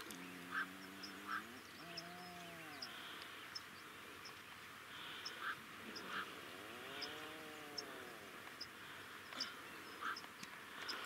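Atlantic puffins giving low, drawn-out calls, three in all: a level one at the start, a short one about two seconds in, and a longer one that rises and falls in pitch around seven seconds in.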